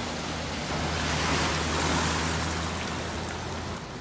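Floodwater rushing across a flooded street in a heavy rainstorm: a steady rushing noise that swells a little about a second in.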